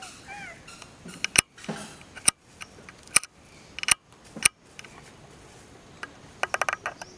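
Long-tailed macaques giving short squeaky gliding calls, with sharp clicks scattered through, and a quick run of clicks near the end.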